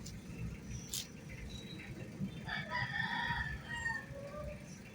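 A rooster crowing once in the background, one call about a second and a half long near the middle, with a sharp click about a second in.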